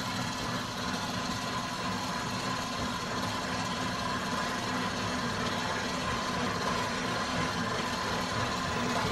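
KitchenAid 8-quart commercial stand mixer running steadily, its dough hook turning in a bowl of flour: a steady motor hum with a faint high whine.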